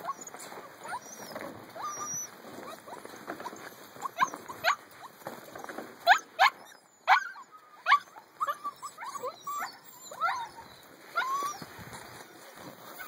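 Eight-week-old husky puppies yipping and squealing: many short, high squeaks that rise sharply in pitch. They are sparse at first and come thick and loud from about four seconds in.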